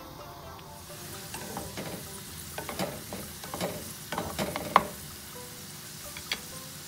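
Carrot strips sizzling in oil in a nonstick frying pan while a spatula stirs them, scraping and tapping against the pan for a few seconds, with one sharp knock near the end of the stirring; then the sizzle goes on alone.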